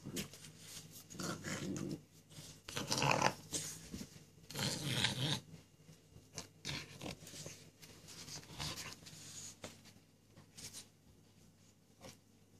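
Young French bulldog play-growling and grunting in irregular bursts as it mouths an older dog's face, loudest about three and five seconds in, fainter toward the end.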